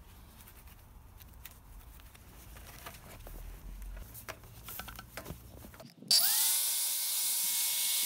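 Faint clicks and taps of handling, then about six seconds in a handheld angle grinder switches on, its whine sweeping up quickly and then holding steady as the disc spins free, loud, with a strong hiss over it.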